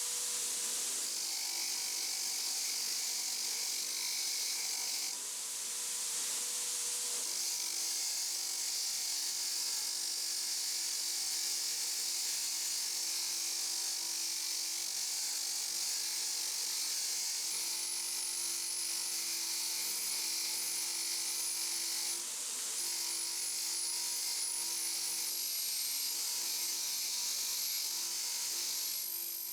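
A small electric power tool running steadily, with an abrasive rubbing against the work in a long hiss. This is the sound of sanding or polishing during the restoration of the grinder.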